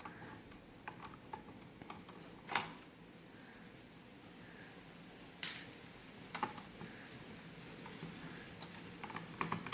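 Scattered small clicks and taps of a screwdriver working screws out of a laptop's plastic case, the two loudest about two and a half and five and a half seconds in.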